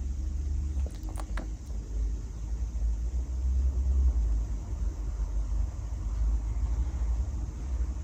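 Sleeping pug snoring: a low rumble that swells and fades, with a few faint clicks about a second in.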